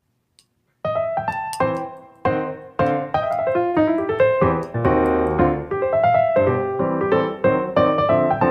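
Background piano music: a light melody of single notes and chords that starts about a second in.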